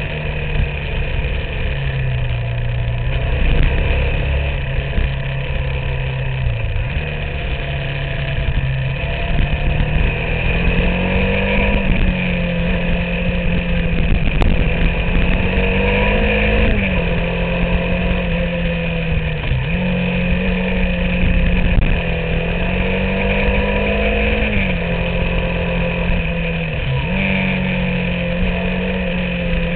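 Motorcycle engine heard from on board while riding. Its pitch climbs under throttle and drops sharply at each gear change, several times over.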